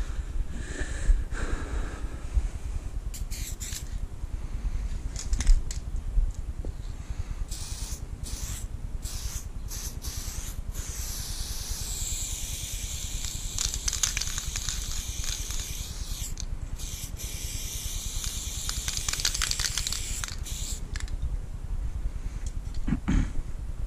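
Aerosol spray-paint can hissing, first in short bursts and then in longer sprays of several seconds each, with a low rumble underneath.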